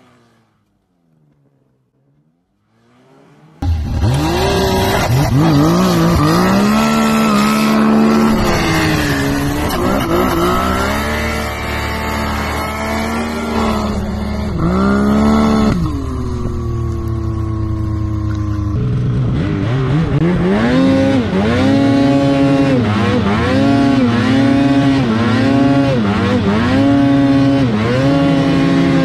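After a few near-silent seconds, snowmobile engines revving hard, the pitch repeatedly climbing and dipping as the throttle is worked. About halfway through one engine winds down sharply before another takes over with a steady rise-and-fall of revs.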